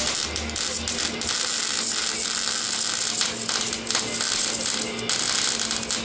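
Electric welding arc crackling steadily while welding a steel exhaust pipe, with short breaks in the arc about a second in and again near the five-second mark.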